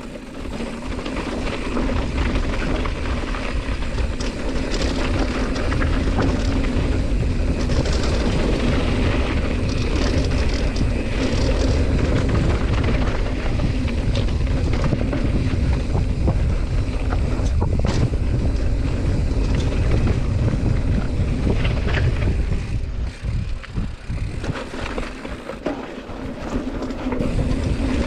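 Mountain bike riding a dirt trail: wind rushing over the camera microphone and tyres rumbling, with short rattles and clicks from the bike over bumps. It eases off for a few seconds near the end, then picks up again.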